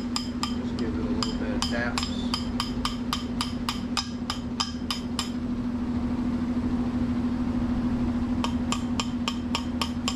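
A hammer tapping a metal sleeve through the rubber bushing of a shock absorber: quick, ringing metal-on-metal taps about four a second, pausing about five seconds in and resuming near the end. A steady low hum runs underneath.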